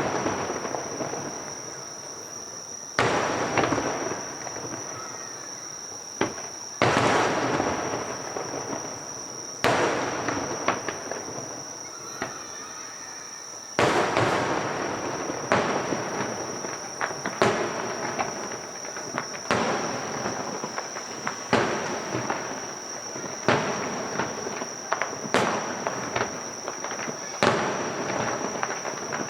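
Aerial firework shells bursting, each a sharp boom trailing off into crackle. The bursts come a few seconds apart at first, then more quickly, about one every second or two, from about halfway through.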